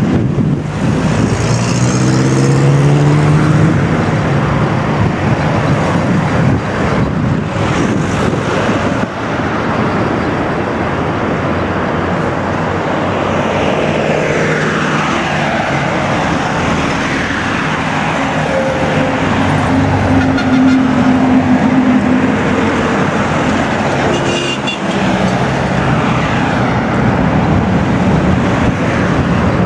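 Highway traffic noise: car and minibus engines and tyres running steadily, with several vehicles passing by and dropping in pitch as they go.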